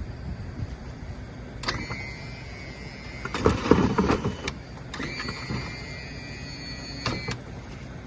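Electric lift motor of a battery-powered dump dolly whining steadily for about a second and a half. A loud clatter follows for about a second, then the motor whines again for about two seconds.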